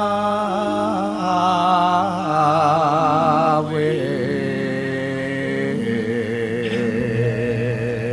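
Traditional Javanese singing from a wayang performance. The voice holds long notes with wide vibrato, moving to new notes about halfway through, over accompanying instruments that hold steady tones.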